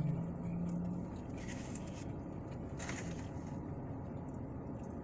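A person hums a held "mmm" for about a second while eating fast food. Then a steady low background rumble, with a few soft rustles and a click from the meal.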